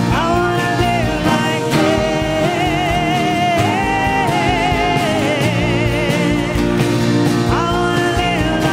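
Contemporary worship band playing live: a woman sings long held notes with vibrato over piano, drums, bass and guitars.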